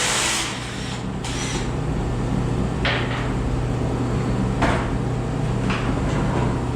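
Three sharp knocks, each ringing briefly, about three, four and a half and nearly six seconds in, over a steady low hum. A short hiss sounds at the very start.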